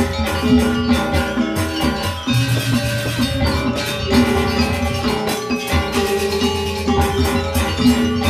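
Balinese gamelan gong ensemble playing: bronze metallophones struck with mallets in fast, dense patterns over two-headed kendang drums. Low held tones join in about two seconds in.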